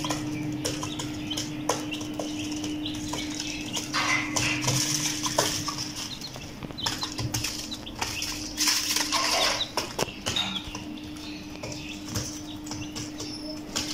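An Aseel hen and broiler chicks scratching and pecking in sawdust on a cardboard box floor: scattered taps and rustling, with a few brief high peeps from the chicks. A steady low hum runs underneath.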